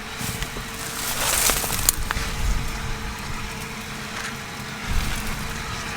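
Rustling of corn plants as someone walks among the stalks, loudest about a second in and ending with a sharp click, over low rumbling and a faint steady hum.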